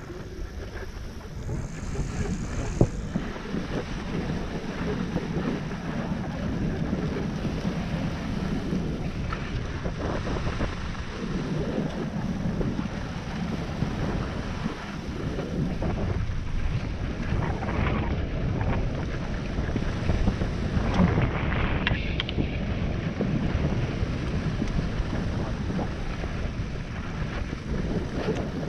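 Wind rushing over an action-camera microphone on a downhill ski run, with skis hissing over snow. A few louder swishes of turns come about two-thirds of the way through.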